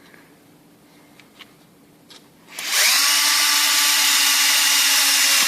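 Power drill starts about two and a half seconds in, rising quickly in pitch to a steady high whine as it drills a 4 mm rivet hole. Before it, a few faint clicks.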